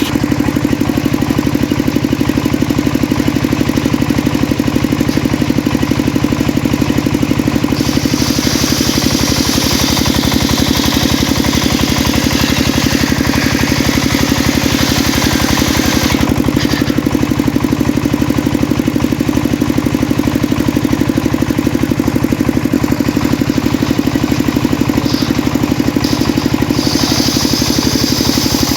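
Engine driving a homemade circular sawmill, running steadily with a fast even pulse. The saw blade cuts through mahogany, adding a higher, harsher sound from about eight seconds in for around eight seconds and again near the end.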